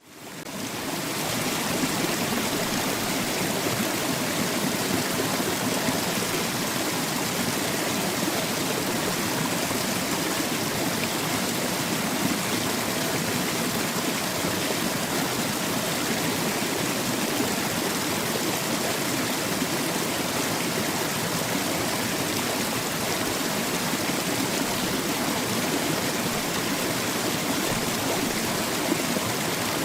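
Small waterfall heard close up: water splashing and rushing in a steady, even wash, fading in over the first second or two.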